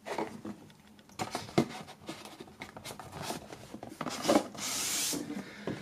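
Handling noise: scattered soft knocks and rubbing, then a hissing rub lasting under a second a little past four seconds in.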